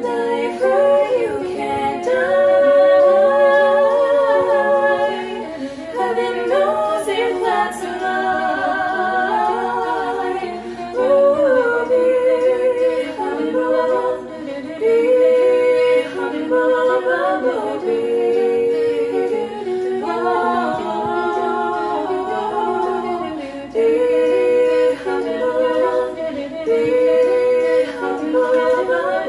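Female voices singing a cappella in close four-part harmony, several layered vocal lines moving together with no instruments, some held notes sung with vibrato.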